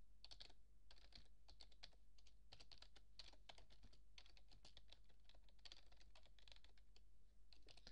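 Typing on a computer keyboard: a run of faint, irregular keystrokes, over a steady low hum.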